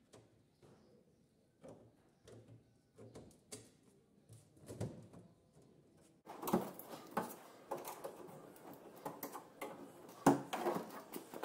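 Screwdriver prying at the metal clasps and steel edge clips of a plywood shipping crate: scattered clicks, scrapes and knocks, sparse and faint at first, then busier and louder from about six seconds in, with a sharper knock near the end.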